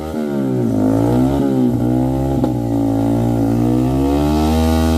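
Motorcycle engine revving hard under load, its pitch rising and falling again and again as the bike is worked across loose rock and mud.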